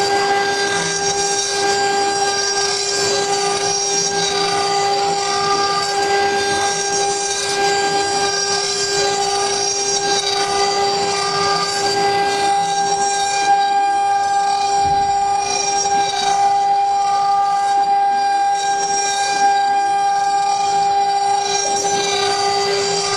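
CNC wood router's spindle running with a steady high whine over a rough hiss, the sound of the cutter working wood on the rotary axis.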